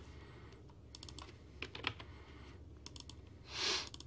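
Computer keyboard and mouse clicks in short clusters of quick taps, about a second apart. Near the end comes a short hiss lasting under half a second, the loudest sound.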